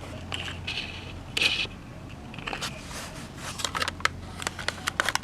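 Hard clicks, knocks and scrapes of a plastic B-17 alarm clock being handled: a brief scraping rush about a second and a half in, then a quick run of sharp clicks near the end.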